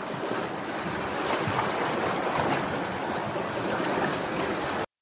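Ocean surf washing and rushing, a steady noise without any tone, that cuts off suddenly near the end.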